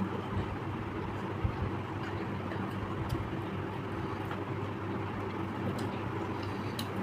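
A steady low hum with a background hiss, and a few faint clicks.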